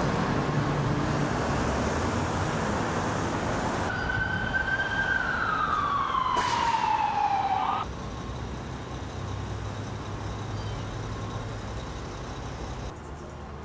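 Street traffic noise, with an emergency vehicle siren about four seconds in that holds briefly and then winds down in pitch for a few seconds before cutting off abruptly. A single sharp click partway through the siren. Then a quieter steady traffic rumble.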